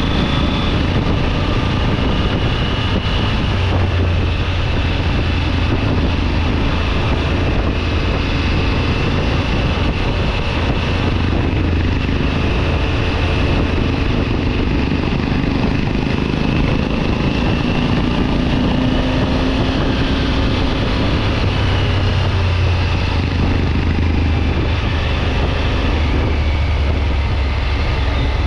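Triumph Tiger 900 GT Pro's three-cylinder engine running under way on the move, its pitch drifting gently up and down, under a steady rush of wind and road noise.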